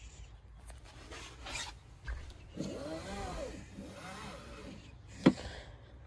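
Rubbing and scraping against a minivan's plastic and carpeted cargo-area trim, with two squeaky tones that rise and fall in pitch in the middle, then a single sharp click near the end.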